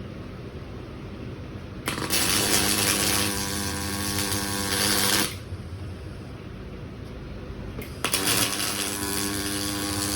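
Robotic welding arc struck twice, two butt welds of about three seconds each: a harsh hiss with a steady buzz that starts abruptly and cuts off. A low steady hum runs underneath between the welds.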